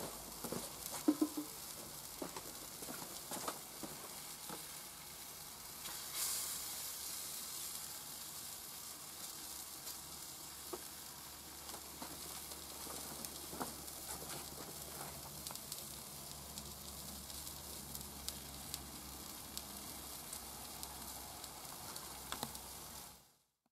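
Food frying on a steel hot plate: tomato halves, onion rings, bread slices and sausages sizzle with a steady hiss and scattered crackles. The sound cuts off abruptly just before the end.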